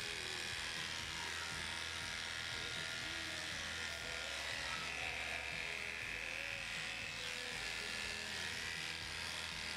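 Cordless electric grooming clippers running steadily as they shave a dog's matted coat down to the skin.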